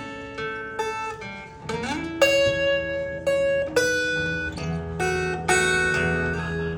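Solo acoustic guitar picking an instrumental passage, single notes and chords ringing out, with one note sliding up in pitch about two seconds in.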